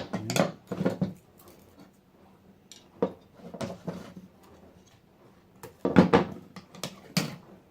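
Sharp knocks and clatter of small hard objects on a work surface as laptop battery-pack parts are handled. They come in three short clusters, about three seconds apart.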